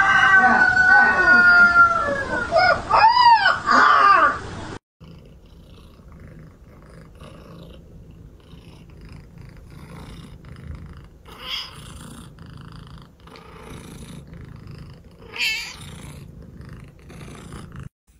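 A pet animal's loud, long drawn-out cries that slide up and down in pitch, yowling or howling, stopping abruptly about five seconds in. After that it is much quieter, with a couple of short, fainter calls.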